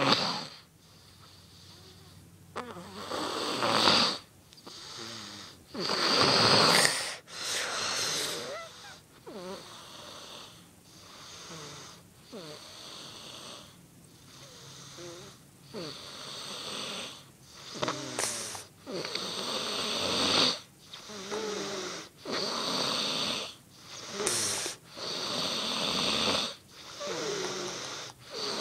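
A person snoring in long rasping breaths, about one every two seconds, some with a wavering pitched note; the snores swell and fade in loudness, the loudest about 4, 6 and 20 seconds in.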